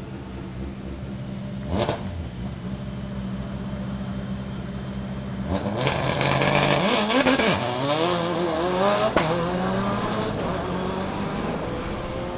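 Subaru Impreza S9 WRC rally car's turbocharged flat-four engine idling, with a short rev blip about two seconds in. About five and a half seconds in it pulls away hard, the revs rising and falling as it works up through the gears, with a sharp crack about nine seconds in, then the sound eases off.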